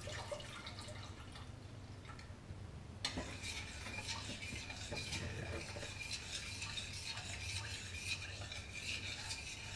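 A utensil stirring a flour, butter and milk sauce in a stainless saucepan, scraping and clinking quickly against the pot to keep lumps from forming. The stirring becomes busy and steady about three seconds in.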